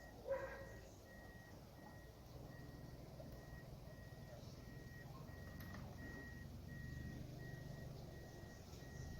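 Honda Stream's reverse-gear warning beeper sounding at an even pace, a short high beep about every 0.7 seconds, with the engine idling low underneath: the car is in reverse.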